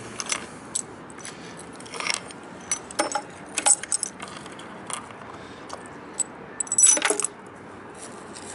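Broken glass shards clinking and scraping against each other and a wooden board as gloved hands gather them up, a run of small tinkling clicks with a louder clatter of glass near the end.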